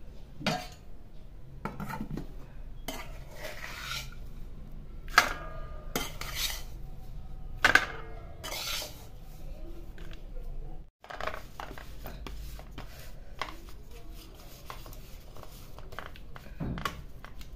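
Metal spatula scraping and clinking against steel cookware as a thick, crumbly jaggery-and-flour mixture is scraped out of the pan and pressed flat on a steel plate. There are scattered sharp clinks, the loudest about five and eight seconds in, between short scraping strokes.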